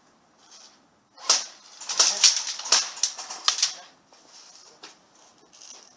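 Airsoft replica guns firing a quick, irregular series of sharp snapping shots, about seven or eight of them over two and a half seconds starting about a second in, then a few fainter ticks.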